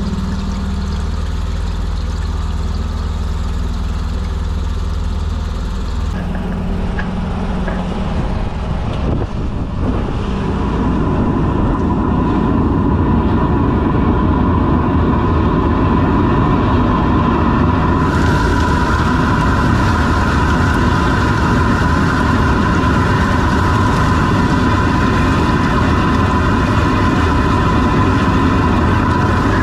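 A drain-cleaning machine runs steadily while its line works down a sewer pipe. About ten seconds in, the noise turns louder and rougher.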